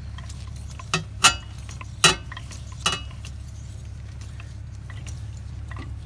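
Sharp metallic clinks of a ratchet and spark plug socket against the engine as a spark plug is worked loose, about four clinks in the first three seconds and one more near the end, over a steady low hum.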